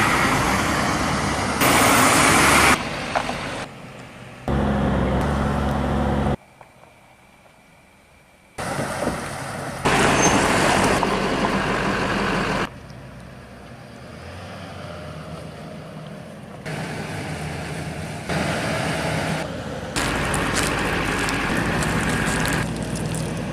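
Pickup truck driving: engine and road noise in several short clips that start and stop abruptly at the edits, with a near-quiet gap about six to eight seconds in.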